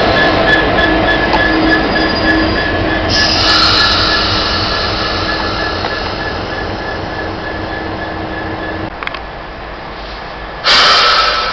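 Light-engine convoy of Class 57 and Class 66 diesel locomotives running past and pulling away, the engine and rail noise fading as they go, with a steady wheel squeal until about nine seconds in. A sudden loud rush of noise comes near the end.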